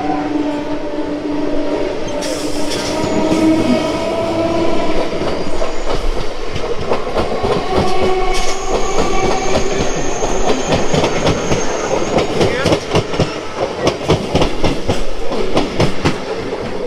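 Two electric suburban local trains (EMUs) running past each other on adjacent tracks. A whine rises in pitch over the first few seconds, then wheels rattle fast over rail joints and points. A thin high squeal is heard for a few seconds in the middle.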